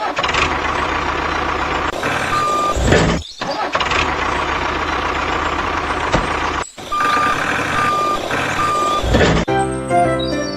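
Truck engine running with a reversing alarm: one beep a little over two seconds in, then three evenly spaced beeps near the end. The engine sound cuts out briefly twice, and music starts just before the end.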